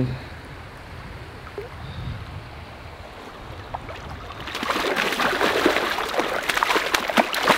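Stream water running steadily, then from about halfway a hooked steelhead thrashing and splashing hard at the surface in shallow water as it is pulled toward the bank.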